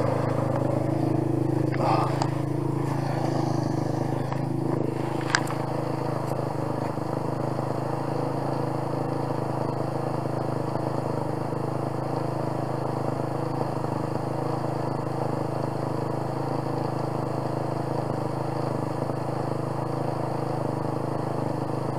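Quad (ATV) engine idling steadily, with one short sharp click about five seconds in.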